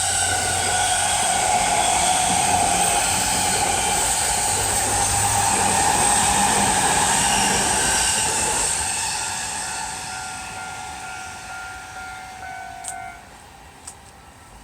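JR Yokosuka Line electric train running past close by, with wheel and running noise and a steady whine, loud for about nine seconds and then fading away as it leaves. Two sharp clicks near the end.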